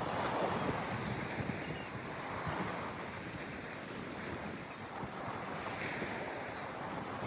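Sea waves washing in, the surf swelling and easing every couple of seconds, with wind buffeting the microphone.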